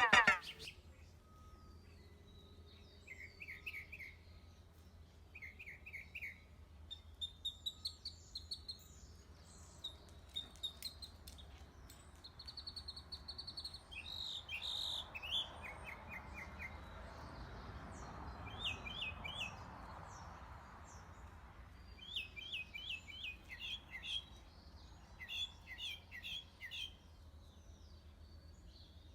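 Wild birds chirping and trilling faintly: short, quick series of high notes in several different patterns, coming every few seconds, over a faint steady low hum.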